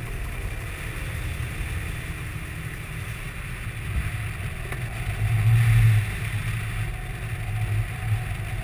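Airflow buffeting the hang glider's mounted camera microphone in flight: a steady low rumble and rush of wind noise that swells in a brief gust about five and a half seconds in.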